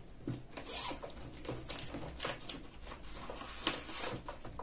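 Packaging and accessories being handled by hand: irregular rustling and light clicks as items are taken out of a box.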